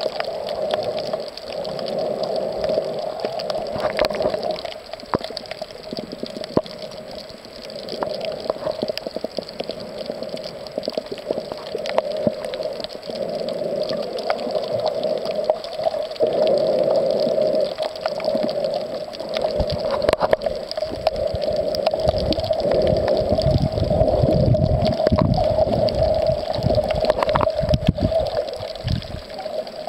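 Water sloshing and gurgling around an underwater camera held by a snorkeler, with scattered small clicks and a steady mid-pitched hum. Low rumbling surges of moving water grow heavier in the last third.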